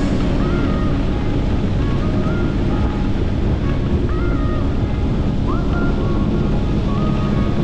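Tiller-steered Mercury outboard motor pushing a jon boat along at steady speed, mixed with the rush of water along the aluminium hull and wind on the microphone.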